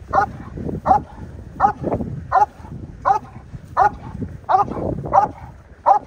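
A Cane Corso barking in a steady, even rhythm, about one bark every 0.7 seconds, nine in all, guarding against a helper in a bite suit.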